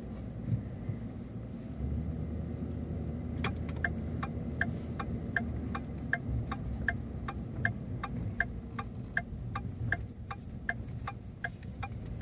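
Steady low rumble of a Ford pickup truck driving slowly, heard from inside the cab. About three seconds in, the turn-signal indicator starts ticking evenly, about two ticks a second.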